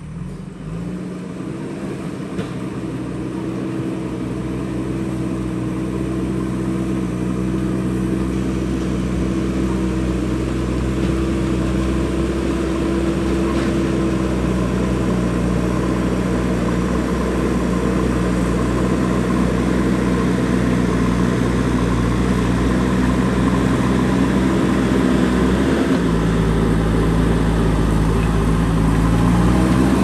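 JCB backhoe loader's diesel engine running steadily as the machine drives forward pushing soil with its front loader bucket, growing gradually louder as it comes closer. The engine note shifts near the end.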